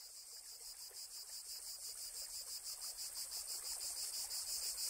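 High-pitched, rapid rhythmic chirping, like insects, at about seven pulses a second, fading in slowly.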